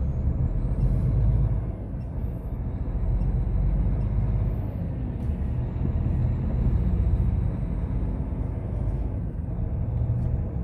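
Diesel truck engine running steadily with a deep low rumble.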